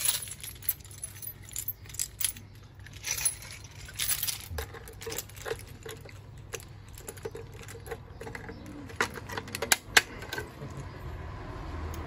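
A bunch of keys jangling and clinking, with sharp clicks, as a test key is put into a Hochiki manual call point to trigger it.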